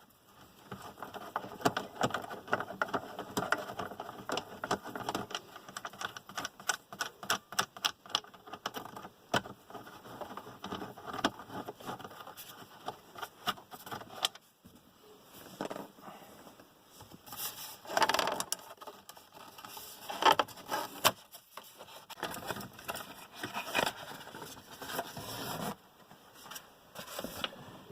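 Plastic dashboard trim of a Volvo XC90 being handled and pried off: repeated scraping, clicks and rattles of plastic parts, with a few louder knocks in the second half.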